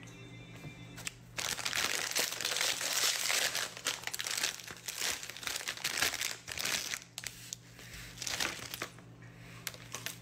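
Doritos chip bag being handled and crumpled, a dense crinkling from about a second and a half in to about seven seconds, then lighter, scattered crinkles.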